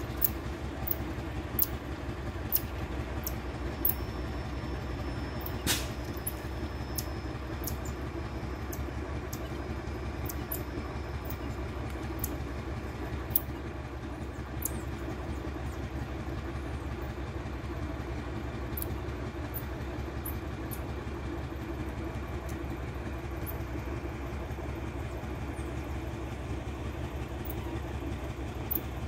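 A steady, low mechanical drone, like an engine or machinery running nearby, with scattered faint high ticks and one sharper click about six seconds in.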